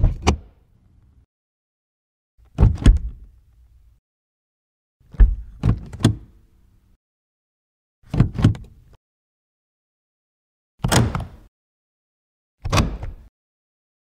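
A series of six car door sounds, opening and closing, each a short cluster of latch clicks and a heavy low thump, separated by silences of one to two seconds. The third, about five seconds in, has three strikes in quick succession.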